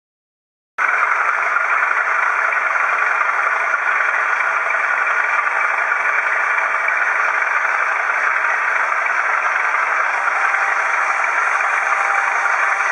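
OO-gauge model train running along the track: a steady whirring noise of the locomotive's motor and the wheels on the rails, heard close up from a camera riding on a low wagon. It starts suddenly about a second in and holds even.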